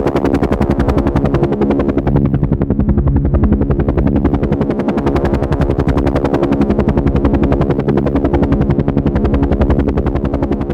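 Helicopter flying, its rotor blades chopping in a fast even rhythm over a steady engine drone.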